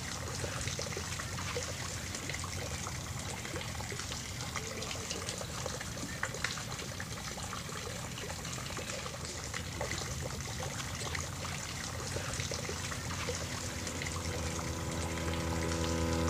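Water lapping and trickling at a lake shore with many small splashes, over a low steady rumble. From about twelve seconds in, a sustained drone of several held tones swells in and grows steadily louder.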